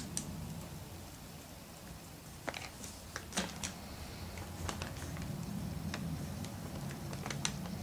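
Hands handling a small plastic doll head and a squeeze bottle on crumpled paper: a dozen or so scattered light clicks and rustles, over a low steady hum.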